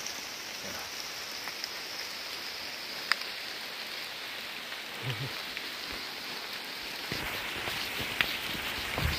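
A steady, even hiss like falling rain, with a few sharp clicks. Near the end it grows rougher, with rustling and a couple of low thuds.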